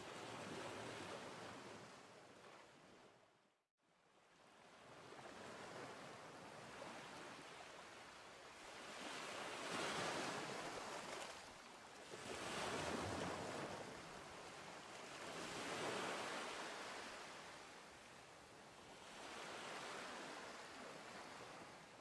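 Small waves breaking and washing up a sandy beach, the surf swelling and fading about every three seconds. The sound fades out completely for a moment about four seconds in, then returns.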